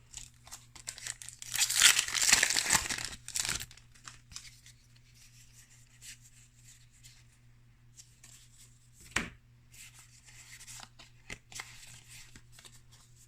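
Magic: The Gathering booster pack's foil wrapper being torn open and crinkled, loudest in the first few seconds, followed by quieter rustling as the cards are handled and one sharp tap about nine seconds in.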